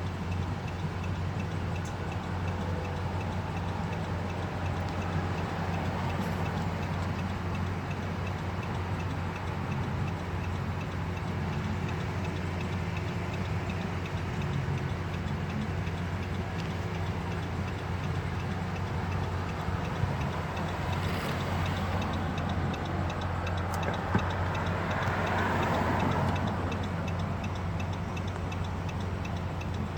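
A car's indicator relay ticking steadily over a low, steady engine idle. A passing vehicle swells and fades once late on.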